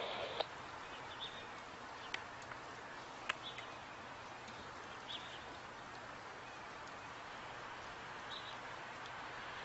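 Faint, steady hiss of a distant rotary snow plow train pushing through snow, growing slightly louder near the end as it approaches. A few short bird chirps and two sharp clicks sound over it.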